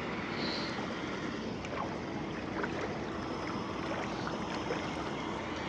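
Steady rushing wash of water on flooded roads, with a few faint clicks.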